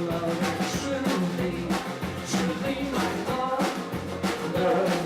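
Live band playing a rock song between sung lines, with a steady drum beat under sustained instrumental notes.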